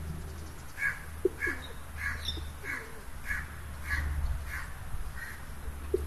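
A bird calling over and over: a regular series of about eight short calls, a little under two a second, over a steady low background hum.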